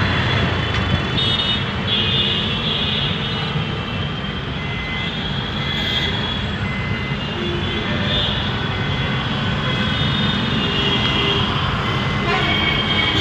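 Slow-moving city traffic jam: vehicle engines rumbling, with short horn toots every few seconds.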